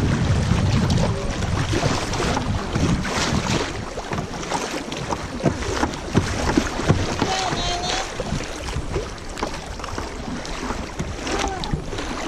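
Water splashing and lapping around a kayak on a moving river, with irregular small splashes. Wind rumbles on the microphone in the first couple of seconds.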